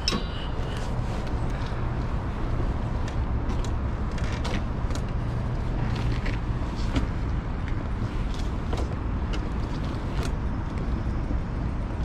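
Steady low rumble of motor-vehicle road noise, with faint scattered clicks over it.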